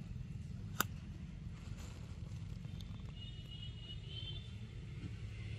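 Quiet outdoor background: a steady low rumble with a single sharp click about a second in, and faint high chirps near the middle.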